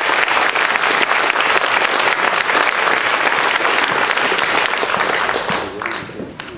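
Audience applauding, a dense patter of many hands clapping that thins out to a few last claps and dies away near the end.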